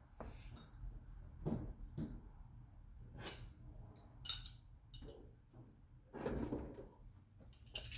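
Scattered clicks, knocks and metallic clinks of hand tools and sockets being picked up and handled, about one every second, with a longer scraping rummage near the end.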